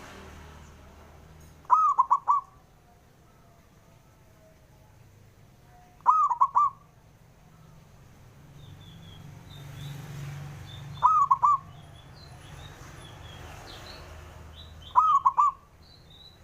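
Zebra dove (perkutut) cooing: four short phrases of quick rolling coo notes, one about every four to five seconds. Faint high chirps of other small birds sound between the phrases.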